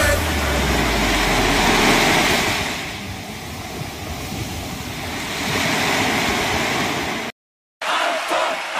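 Loud, steady rushing noise with a low rumble over the first two seconds. It cuts off suddenly near the end, and dance music starts.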